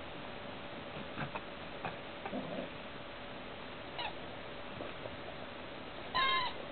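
Puppies squeaking: a short high squeak falling in pitch about four seconds in, then a louder, higher squeal near the end. A few faint clicks and snuffles come before.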